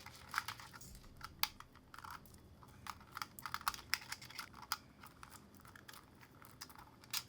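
Irregular sharp clicks and taps of small plastic and metal parts being handled and fitted together while a 3D-printed robot is assembled.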